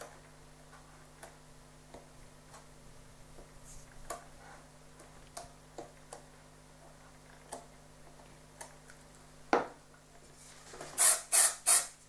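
Scattered small clicks and taps from handling a foam fuselage and a squeeze bottle of thin CA glue, with a sharper knock shortly before the end as the bottle is set down on the cutting mat. Then three short hissing spray bursts near the end, the loudest sound here, typical of CA activator spray being pumped onto a freshly glued joint.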